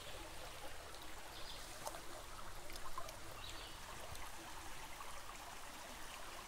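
Shallow creek water trickling along a gravel bank, faint and steady, with a few light clicks.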